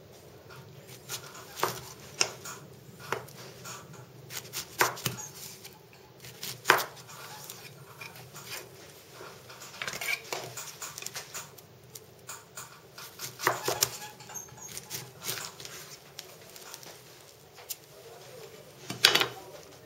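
Kitchen knife cutting through peeled pineapple and tapping on a plastic cutting board: irregular sharp clicks and knocks, a couple of them louder, one about a third of the way in and one near the end.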